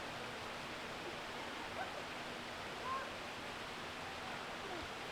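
Steady rush of flowing water, with faint indistinct voices and a few brief high calls over it.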